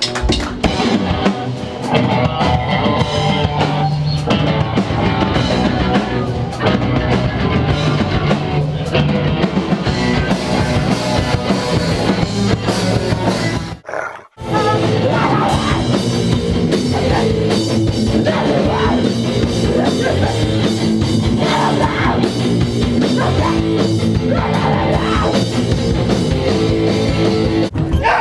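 Rock band playing loud, with drum kit and guitars. It breaks off for a moment about fourteen seconds in, then resumes.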